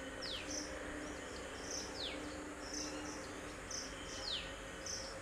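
Faint outdoor ambience of chirping insects, with short high buzzes repeating irregularly. Three brief falling chirps are spread through it.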